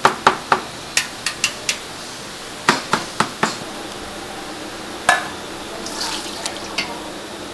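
Metal ladle knocking against steel pots and a strainer, a run of sharp clinks in quick clusters, with red liquid pouring and splashing between them.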